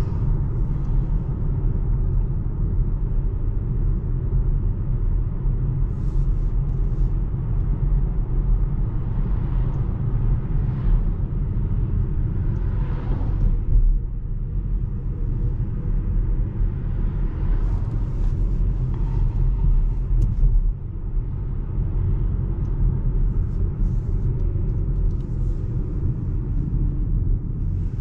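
Steady low tyre and road rumble inside the cabin of a Volvo C40 Recharge Twin electric car on the move, with no engine sound. There is a brief swell about halfway through.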